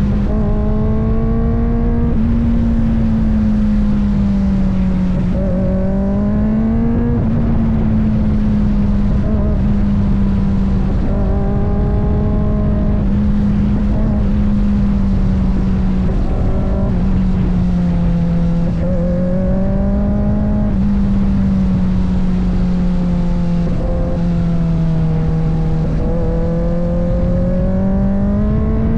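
Kawasaki ZX-4RR's 399 cc inline-four engine running at high revs under way, its note dipping and climbing gently with the throttle and rising near the end, over a steady low rush.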